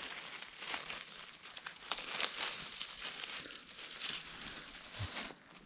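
Irregular close rustling and crinkling, with small crackles scattered through it.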